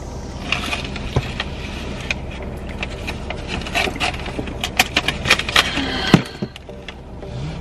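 Close clicks and knocks of things being handled inside a car, over a steady low cabin hum. The knocks come thickest late on and end in one sharp knock, after which the hum cuts off suddenly.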